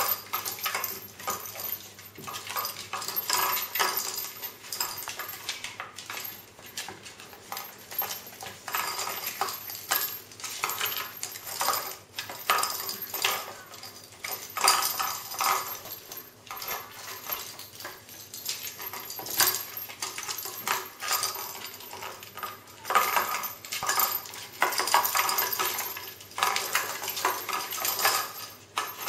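Kittens pawing and scrabbling at a puzzle box with round holes: an uneven, continuous clatter of knocks, clicks and scratches as they reach into the holes and jostle the box on the tile floor.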